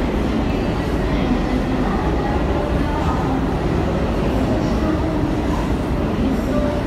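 New York City Subway R46 transfer train running through a station without stopping: a steady rumble of wheels on the rails, with a faint tone wavering in the background.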